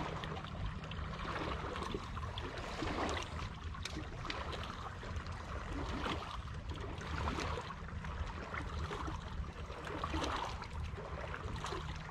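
Water lapping and trickling against a bass boat's hull over a steady low hum.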